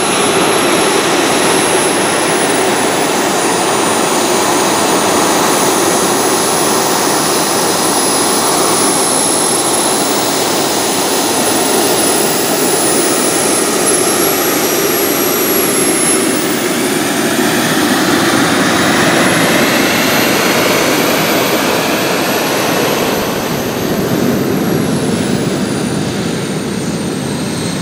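Miniature jet turbines of a large radio-controlled Boeing 747-400 model running as it taxis: a loud steady rush with a thin, high turbine whine that wavers up and down in pitch.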